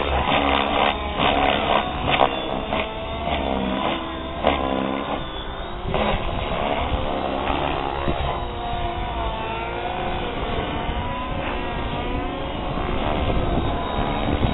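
Compass 6HV electric RC helicopter in flight, its motor and rotor whine rising and falling in pitch again and again as it manoeuvres.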